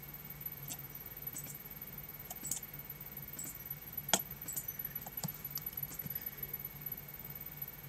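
Light, scattered clicks of a computer being operated, about a dozen spread irregularly, with one sharper click about four seconds in, over a steady low hum.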